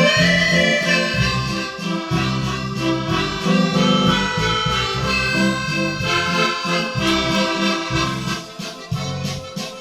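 Background music led by an accordion, with a rhythmic bass accompaniment.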